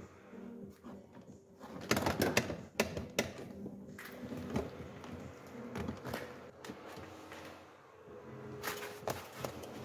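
Hands working on plastic dashboard trim and wiring in a car footwell: irregular clicks, taps and rustling, busiest about two seconds in and again near the end.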